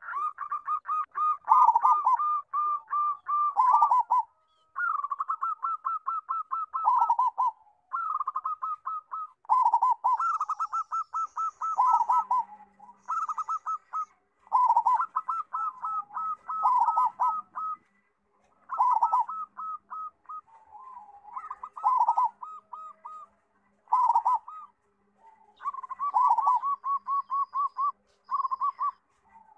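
Zebra dove (local perkutut) singing its rolling coo, described as a big voice. Each phrase is a fast run of short staccato notes that drops into a few lower, heavier notes at the end. The phrases repeat every few seconds with brief pauses.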